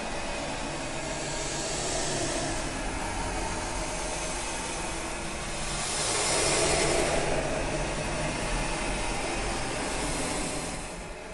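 Droning sound-effects soundtrack: a steady rumble under hiss that swells about two seconds in and most strongly around the middle, then eases off at the end.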